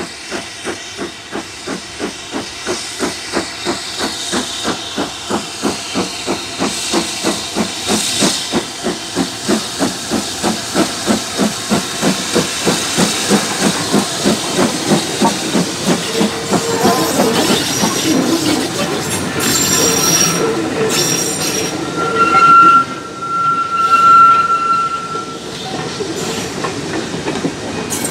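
BR Standard Class 7 Pacific steam locomotive 70000 Britannia working past, its exhaust beats coming about three a second and growing louder as it approaches, with steam hiss. Once it has passed, the coaches rumble by with clanks from the wheels, and a high steady wheel squeal sounds for a few seconds near the end.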